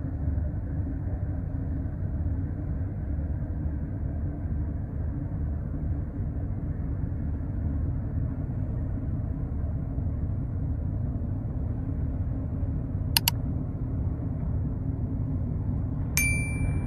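River cargo ship's engine running with a steady low rumble. About three-quarters of the way through there are two sharp clicks, and near the end a single metallic ding rings briefly.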